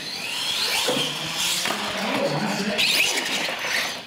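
Radio-controlled solid-axle monster truck's electric motor whining, rising in pitch in three surges as it is throttled up across a concrete floor.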